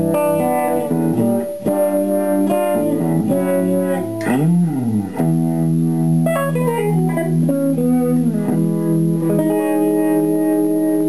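1982 Fender Stratocaster on its middle single-coil pickup, played clean through a Danelectro Cool Cat Vibe analog vibe pedal into a silverface Fender Princeton Reverb amp. Chords ring out, with a quick slide up and back down about four seconds in and a falling run of notes. A chord is held near the end.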